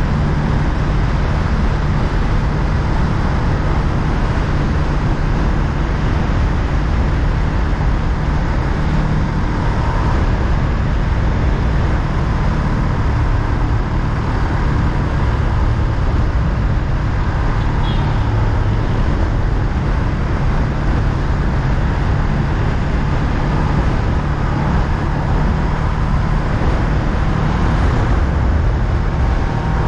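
Honda Rebel 500 motorcycle on the move, its parallel-twin engine running steadily under a constant rush of noise, with no change in pace.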